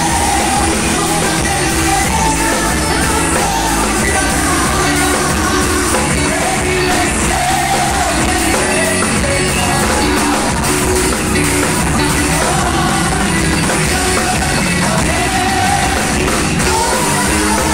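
Live Brazilian gospel band playing a corinho de fogo medley: a drum kit and amplified band, with singing over them.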